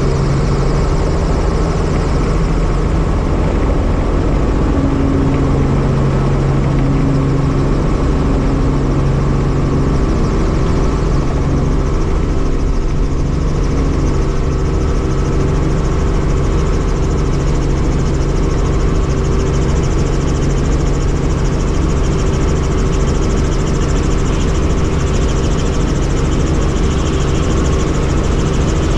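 Helicopter engine and rotor running steadily, a constant loud drone with a held low hum.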